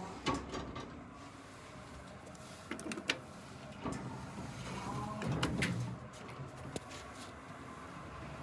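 Otis Crescess elevator in operation: a low steady hum of the running car, with several sharp clicks and clunks and a louder rattling stretch about five to six seconds in.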